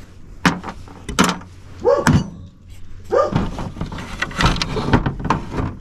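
Knocks, clatter and scraping of small scrap parts being handled and tossed onto piles, with a few brief squeaks.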